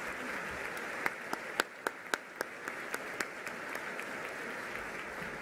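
Large audience applauding steadily, with a run of nearer, louder single claps at about four a second for a couple of seconds starting about a second in.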